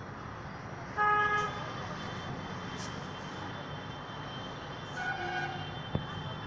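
Vehicle horns over a steady bed of traffic noise: a short, loud toot about a second in and a fainter one about five seconds in, with a single sharp click shortly before the end.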